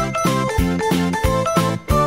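Background music with a steady beat and short repeated notes.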